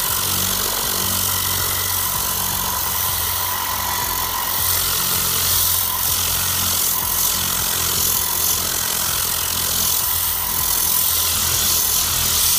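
Tornado-type compressed-air cleaning gun blowing air into car floor carpet with its solution valve shut, after the cleaning solution has gone in: a loud, steady hiss that cuts off abruptly at the end.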